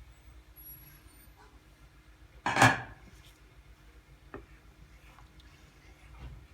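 Tableware being handled: one short, loud clatter about two and a half seconds in, followed by a few faint clicks.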